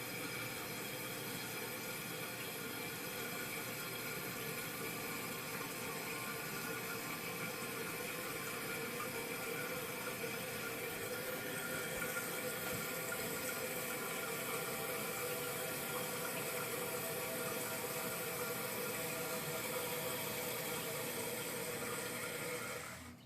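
A new toilet fill valve refilling the tank: a steady hiss of running water with a whistling edge. It shuts off abruptly near the end as the float reaches its set level.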